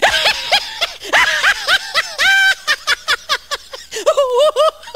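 A person laughing hard and high-pitched, in quick repeated 'ha-ha' bursts of several a second, with one longer squeal about two seconds in.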